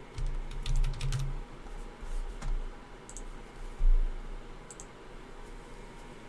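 Handling noise from objects on a tabletop: a quick run of clicks and low thumps in the first second and a half, a few more knocks, then one louder thump near the four-second mark.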